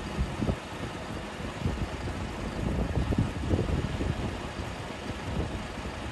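2007 Volkswagen Touareg V10 TDI running at a standstill, a low steady rumble, with irregular gusts of wind buffeting the microphone.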